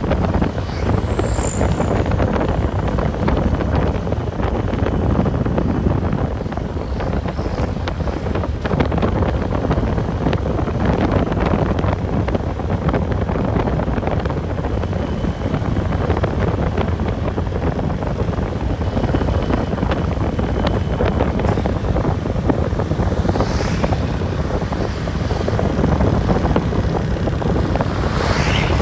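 Steady road and engine noise of a moving vehicle, with wind buffeting the microphone.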